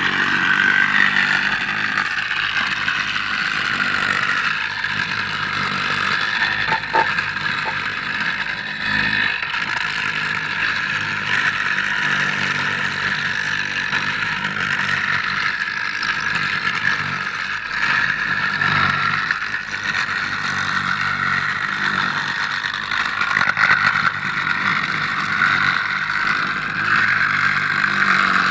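Hand tie tampers (HTT), small engine-driven vibrating tampers, running steadily while they vibrate and pack the ballast under the railway sleepers. The noise swells and eases slightly now and then.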